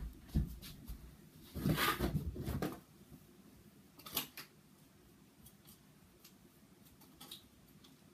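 Bumps and rustling as a person gets up and moves away in the first three seconds, then a quiet room with a couple of faint, distant clicks.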